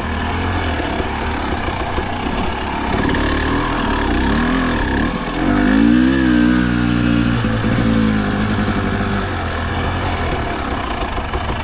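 Enduro dirt bike engine running at low speed, heard from the rider's seat. Its pitch rises and falls as the throttle is worked, with the loudest burst of throttle about six seconds in.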